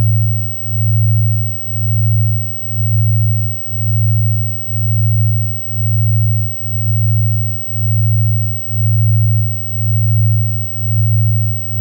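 Synthesized low, steady tone that swells and fades about once a second, like a slow pulse, with a faint soft wash above it. It is an electronic meditation drone.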